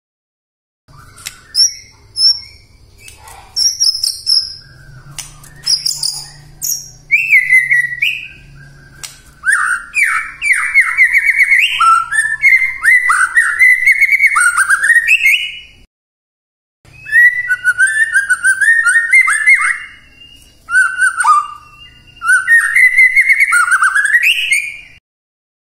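White-rumped shama singing: loud, varied phrases of rich whistles, fast trills and chattering notes, with high thin notes mixed in. The song breaks off twice into about a second of silence.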